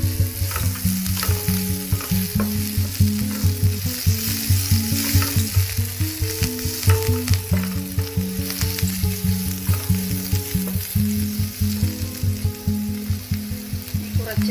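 Sliced onions and green chillies sizzling in oil in a non-stick frying pan, stirred and scraped with a wooden spatula. Background music with a steady beat plays underneath.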